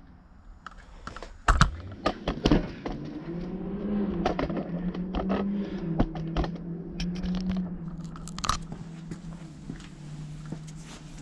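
Handling noise as a camera is moved and set in place on a wooden table: scattered knocks, clicks and scrapes, the loudest about a second and a half in. A low, wavering hum sits underneath from about three seconds in.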